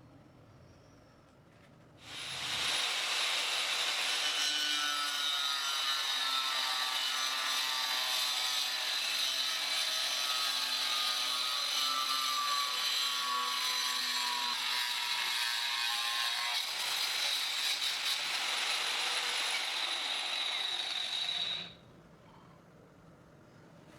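Angle grinder running under load, cutting or grinding with a steady high whine whose pitch wavers slightly; it starts abruptly about two seconds in and cuts off abruptly near the end.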